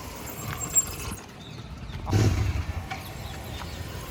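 Royal Enfield Continental GT650 rolling past with its engine off and the brake held gently, giving the brake noise from the front wheel that has grown worse. A louder rumble swells briefly about two seconds in.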